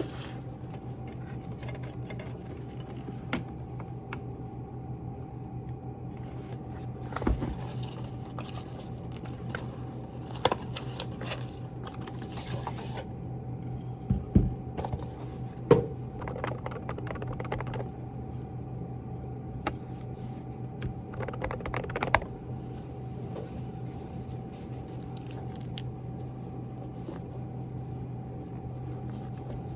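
Typing on a Groovestone GV10 keyboard with hand-lubed silent Coral switches: muted keystrokes in irregular clusters, with a few sharper clacks, over a steady low hum.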